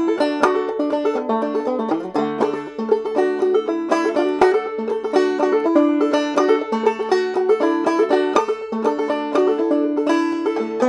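Solo clawhammer banjo, played in a steady, even rhythm of plucked notes with a recurring high drone note.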